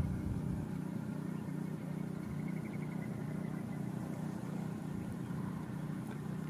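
Steady low background rumble with a faint hum in it, like distant motor traffic.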